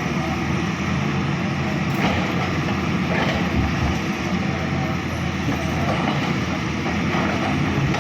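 Heavy diesel engine of earth-moving equipment running steadily, with a few faint knocks.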